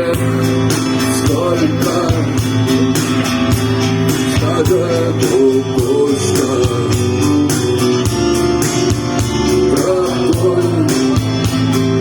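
Rock music: guitar playing bending, wavering notes over a steady drum beat, with no clear words.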